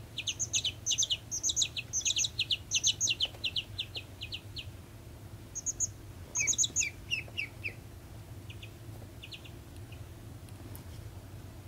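Baby chick peeping in quick runs of short, high peeps, about four a second, through the first half, with another burst a little after the middle, then fainter and sparser peeps. A low steady hum underneath.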